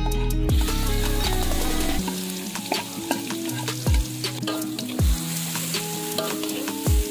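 Food frying in oil in a pan, sizzling steadily from about half a second in, under background music with a bass line and a thudding beat.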